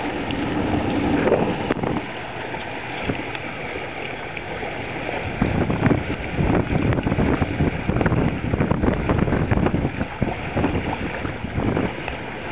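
Wind buffeting the microphone over water rushing past the hull of a small sailing trimaran under way, with louder gusts in the second half.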